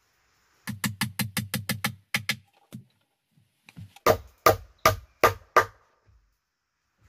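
Hammer blows on timber: a quick run of about ten light taps, then after a pause five heavier, evenly spaced strikes, as boards are knocked together into a wooden stair frame.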